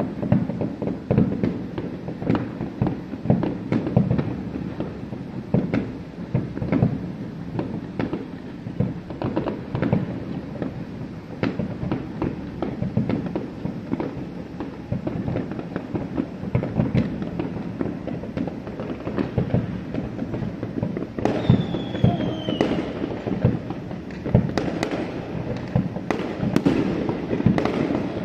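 Aerial fireworks display: a continuous barrage of booms and crackling bursts overlapping one another, with a high whistle falling in pitch about three-quarters of the way through.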